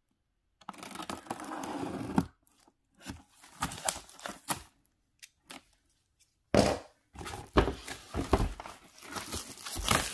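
Clear plastic shrink-wrap being torn and peeled off a cardboard box by hand, crinkling in a series of noisy bursts, the loudest from about six and a half seconds in.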